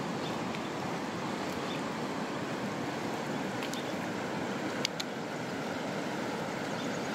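Steady rush of flowing river water, with a couple of faint clicks about five seconds in.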